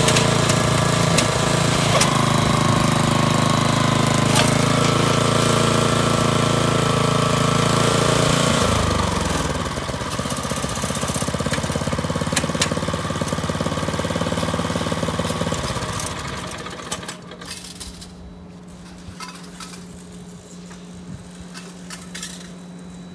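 Kubota TR70 walk-behind tiller's 6.2 hp single-cylinder engine running steadily, then throttled down about nine seconds in to a lower, slower note. Around sixteen seconds it slows further and drops to a much quieter low hum with a few light clicks.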